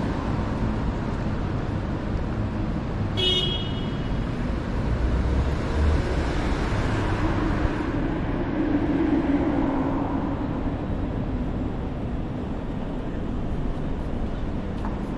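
Steady city road traffic. A short, high toot of a horn comes about three seconds in, and a vehicle's rumble swells and fades in the middle.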